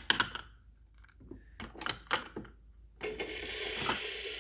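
Hard plastic toy food pieces clacking against a toy kitchen counter, then about three seconds in the Fisher-Price Laugh & Learn Servin' Up Fun Food Truck's toy grill starts its electronic sizzling sound effect, a steady hiss, as a toy burger is cooked on it.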